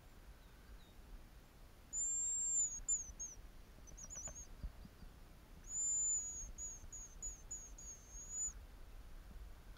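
Hazel grouse whistle calls: two high, thin phrases about four seconds apart, each a long held whistle followed by a run of short notes, with a faint trill between them.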